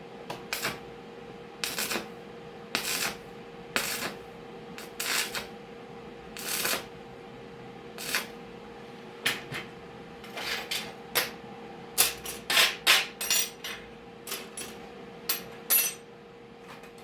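Irregular knocks and clatters of metal parts being handled and tapped, loudest and quickest in a run near the end, over a steady electrical hum.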